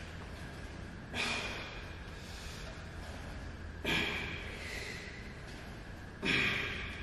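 A man's forceful, noisy exhalations with each rep of a strength exercise: three sharp breaths, each dying away over about a second, some two and a half seconds apart.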